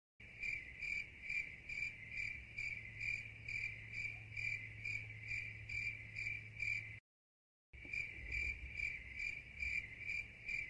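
Cricket-chirping sound effect: a steady, regular high chirp about twice a second over a low hum. It cuts out abruptly for under a second about seven seconds in, then resumes.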